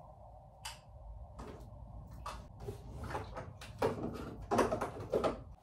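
A desk drawer is pulled open and things in and on the desk are handled. The sound is a string of light knocks and clatters, louder and closer together near the end.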